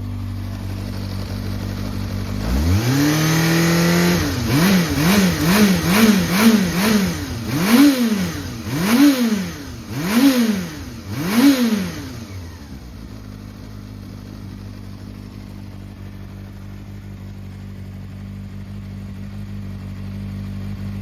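Yamaha XJR400's air-cooled inline-four engine, fitted with a Moriwaki aftermarket muffler, idling and then revved: a held rise, a run of five quick throttle blips and four bigger ones. It settles back to a steady idle about twelve seconds in. The seller calls the engine free of abnormal noises and in good running order.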